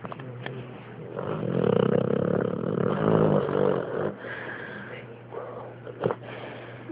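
Pit bull snoring in its sleep: one long, loud, rough snore swelling from about a second in to about four seconds in, then quieter breathing and a brief sharp sound near the end.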